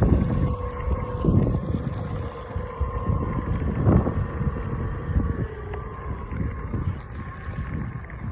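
Electric skateboard on the move: a steady motor whine over rumbling wheel and road noise, with wind buffeting the microphone. The whine dips slightly in pitch and fades about six seconds in.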